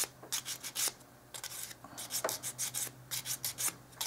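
Emery board filing the end of a wooden craft-stick piece, in quick back-and-forth scratchy strokes that come in runs with short pauses between them.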